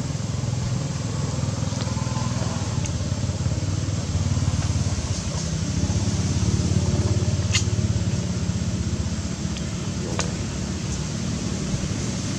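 Steady low engine rumble under an even background hiss, with a couple of faint sharp clicks in the second half.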